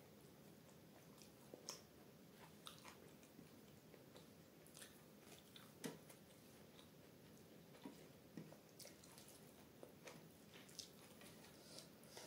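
Quiet close-up eating sounds: a person chewing soft food, with scattered short mouth clicks and smacks about once a second.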